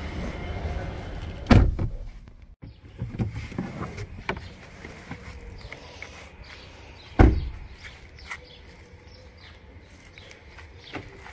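A car door shuts with a heavy thump about one and a half seconds in, and a car door slams shut again about seven seconds in, with a few lighter knocks between them and a faint click near the end.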